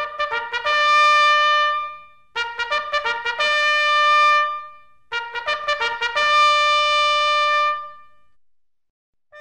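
Solo trumpet playing three short fanfare-like phrases. Each phrase is a few quick notes followed by a long held higher note that fades away.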